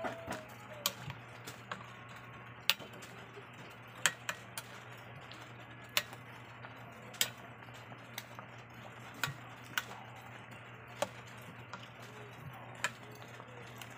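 Metal ladle clinking against the rim and sides of a stainless steel pot at irregular intervals while stirring, over a steady low hum.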